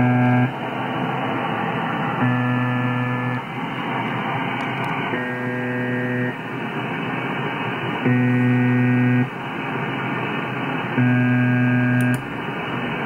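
Software-synthesised imitation of the UVB-76 'Buzzer' shortwave station: a low, rich buzz pitched near 124 Hz sounds for about a second, roughly every three seconds, over a steady hiss. The tail of one buzz is followed by four more.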